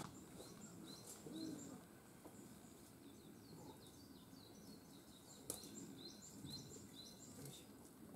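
Faint small-bird chirps, short calls repeated again and again over a quiet background, with one sharp click about five and a half seconds in.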